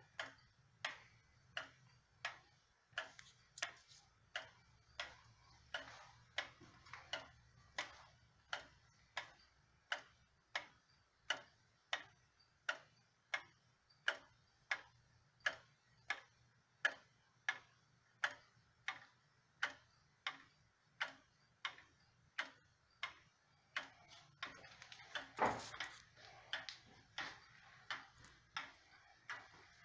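Sessions banjo wall clock's time-only pendulum movement ticking steadily, about two ticks a second. A brief louder noise breaks in about 25 seconds in, and the ticking carries on through it.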